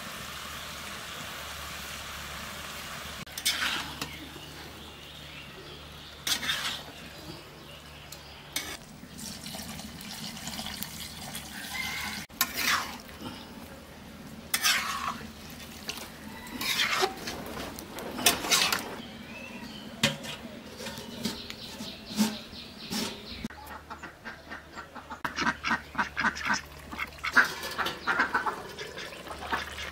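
Ducks quacking in repeated short bursts, with a rapid run of quacks near the end, over quieter cooking sounds from the curry pan.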